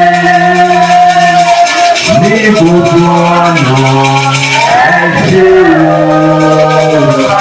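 Church praise music: held chords that change a few times, a steady shaker rhythm, and singing voices.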